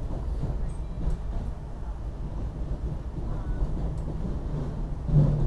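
Inside a SEPTA Silverliner IV electric railcar under way: a steady low rumble and hum, with a louder bump about five seconds in.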